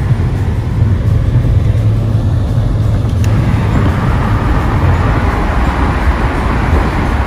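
Car on the move: a steady low drone of road and engine noise, with a hiss that grows louder about halfway through.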